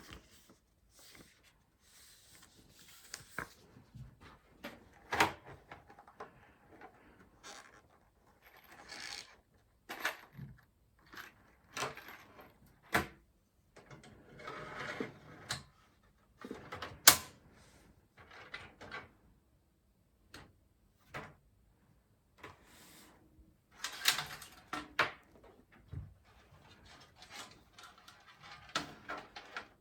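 Hands working on a PC case and its parts: irregular sharp clicks and light knocks with rustling between them, the sharpest click a little past the middle.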